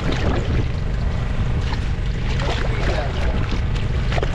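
Hooked fish thrashing and splashing at the water's surface beside a boat's hull, over a steady low rumble of boat and wind noise.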